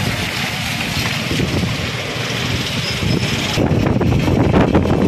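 Slow road traffic on a wet road: cars, motorbikes and a small truck with their engines running. The rumble gets louder about three and a half seconds in.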